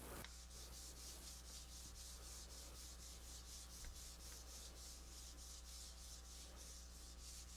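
Faint, rhythmic back-and-forth rubbing, about four strokes a second, over a steady low hum.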